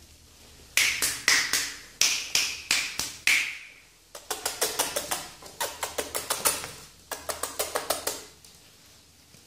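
Fingers snapping sharply, about eight separate snaps with a brief ring, followed by a faster run of about five clicks a second that stops about a second before the end.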